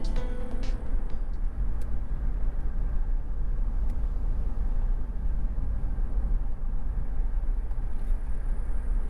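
Car driving along a mountain road: a steady, fairly loud low rumble of road and engine noise with no change in pace.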